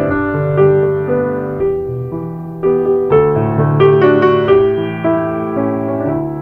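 Background music: a slow piano piece, notes and chords struck every second or so and left to fade.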